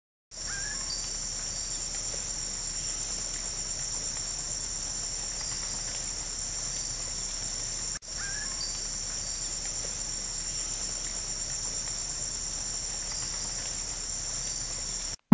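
A steady, high-pitched chorus of insects chirring in the woods, broken off for a moment about halfway through.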